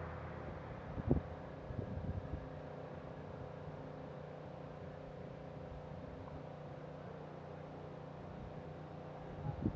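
Steady hum of a vehicle engine running at a distance, with a few brief low thumps about a second in, around two seconds in, and near the end.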